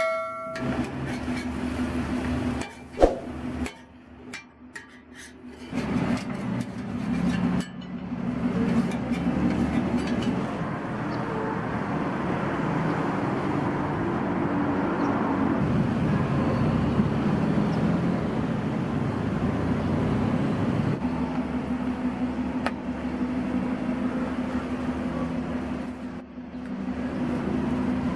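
Metal spatula clinking and scraping on a flat-top griddle over the first few seconds, then a steady mechanical hum with street-like background noise.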